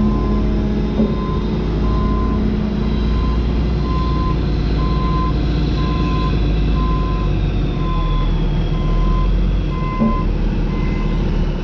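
Dump truck's backup alarm beeping steadily about once a second as the truck reverses to the excavator to be loaded. A diesel engine rumbles steadily underneath.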